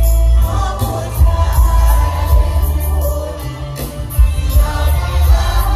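Live mor lam band playing loudly through a PA, with a singer over a heavy bass line and a steady drum beat.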